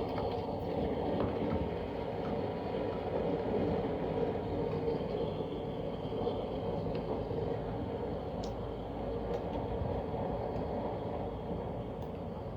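Steady low rumble of traffic crossing the highway bridge overhead, echoing in the underpass, with a few faint clicks.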